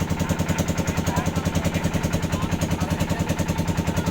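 Engine running steadily with an even, rapid chug of about six beats a second.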